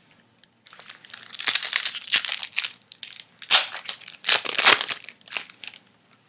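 Foil wrapper of a 2007 Bowman Chrome card pack crinkling and tearing as it is opened by hand: a run of crackly rustles starting about a second in, loudest a little past the middle, stopping shortly before the end.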